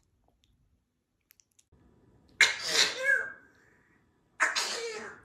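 An animal sneezing: one sudden, sharp sneeze about two and a half seconds in, and another sudden burst near the end.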